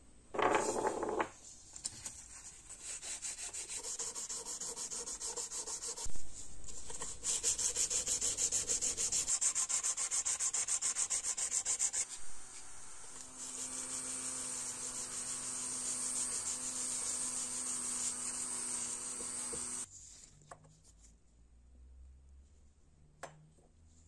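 Brass being sanded by hand with sandpaper in quick, even back-and-forth strokes, with a sharp knock partway through. This is followed by a steadier, continuous rubbing with a low hum under it, which stops suddenly.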